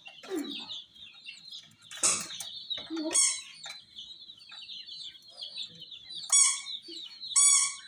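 A group of baby chicks peeping continuously in high, rapid chirps. Three louder, lower calls stand out: one about three seconds in and two near the end. There is a short noisy burst about two seconds in.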